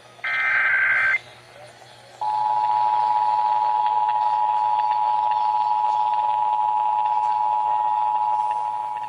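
Emergency Alert System test over the radio: a final one-second burst of SAME digital header data tones, then, after about a second's pause, the steady EAS two-tone attention signal starts and holds, dropping a little in level near the end.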